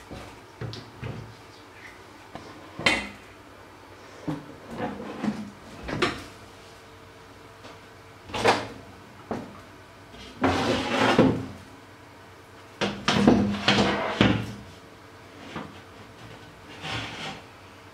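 Kitchen handling noises: a string of irregular knocks, bumps and short rattles as things are moved about, with a busier clatter in the second half, over a faint steady hum.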